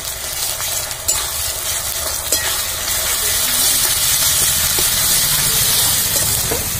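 Sliced onions and ginger-garlic-green-chilli paste frying in oil in a metal kadai, sizzling, with a metal spatula scraping and clicking against the pan as it is stirred. The sizzle grows louder about three seconds in.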